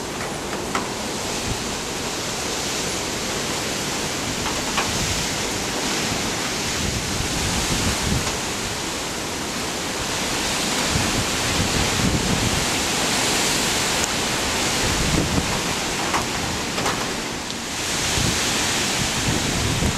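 Hurricane wind gusting against the microphone over a steady rushing roar, swelling and easing every few seconds.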